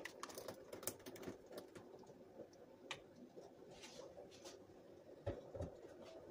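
Thick blended tomato salsa poured from a glass blender jar into a ceramic bowl, faint, with scattered small clicks and taps, most of them in the first second or so.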